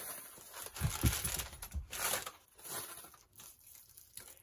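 Paper takeout bag and aluminium-foil burrito wrapper crinkling and rustling as the burrito is pulled out and handled, with a few soft bumps. It is busiest in the first two seconds and dies down after that.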